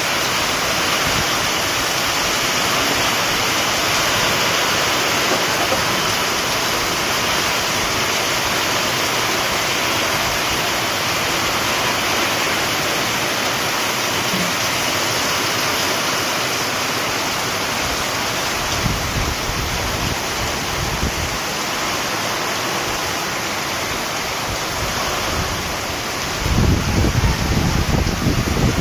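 Heavy rain falling steadily, a dense even hiss. Wind buffets the microphone with low rumbles twice, about two-thirds of the way through and again near the end.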